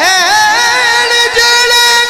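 Man singing a Sufi devotional chant (naat) in a long drawn-out vocal line, sliding in pitch at first and then holding one note. A steady drone runs beneath it.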